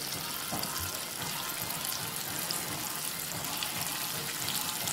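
Flour-coated king fish steaks frying in hot oil in an aluminium pot: a steady sizzle with fine crackling.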